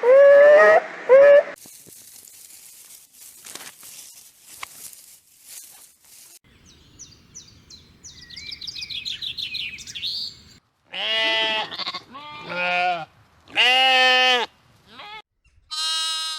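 Goats or sheep bleating: a rising call at the start, then four long bleats about a second apart near the end. In the middle there is a run of short, high chirps.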